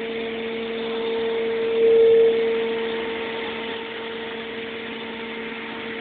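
Refurbished Sullair 16-100 air compressor running with a steady hum, swelling briefly louder about two seconds in before settling back.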